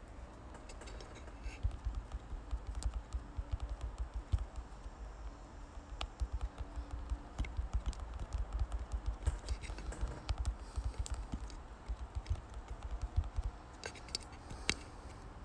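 Rapid, irregular light tapping mixed with dull knocks, starting about a second and a half in and stopping about a second before the end.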